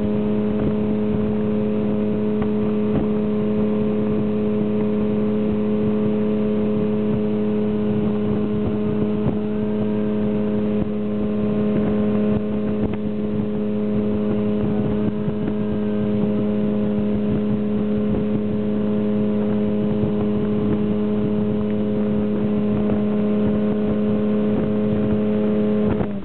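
Tow boat's engine running at a steady speed, holding one unchanging pitch throughout.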